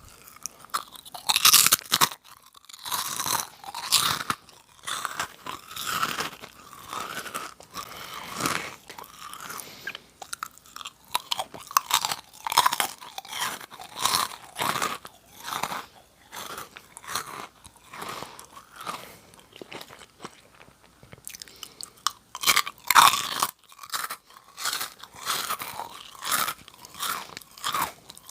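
Close-miked chewing of Nongshim Jagalchi, a crisp fried snack, as a continuous run of crunches and bites. The crunches are loudest about a second in and again about three-quarters of the way through.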